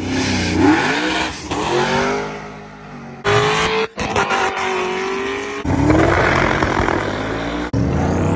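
Car engine revving, its pitch rising and falling, in several short clips spliced together with abrupt cuts between them.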